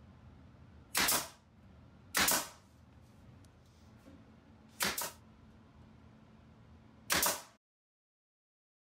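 Pneumatic finish nailer driving finish nails into wood: four sharp shots, irregularly spaced over about seven seconds.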